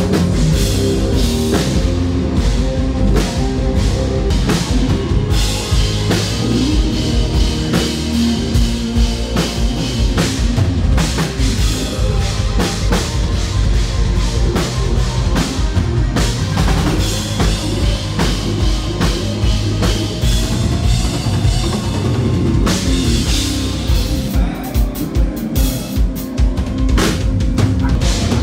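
Live country-rock band playing loud through a stadium PA, with a drum kit keeping a steady beat under electric guitars.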